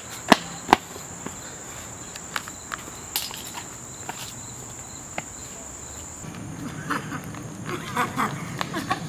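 Running footsteps on a woodland path, irregular sharp steps, over a steady high-pitched buzz of insects that fades about six seconds in.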